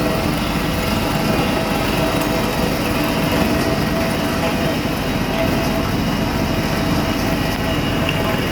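Smooth-drum vibratory road roller running steadily while compacting hardcore: a loud, even engine and machine noise with a few steady tones held throughout.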